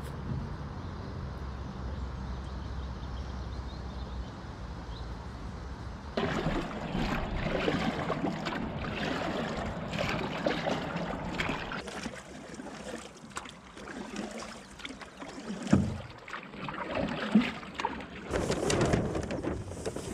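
Water sloshing and splashing against a small trimaran's hull, with rustling handling noise from the boat. A steady low rumble runs for the first few seconds, and two sharp knocks come near the end.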